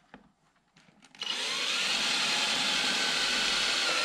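Cordless drill driving a screw into a car's side skirt: the motor starts suddenly about a second in and runs at a steady speed.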